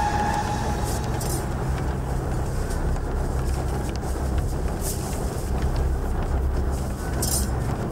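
Battle reenactment din: a steady low rumble of fighting men, with three short sharp noises breaking through at intervals.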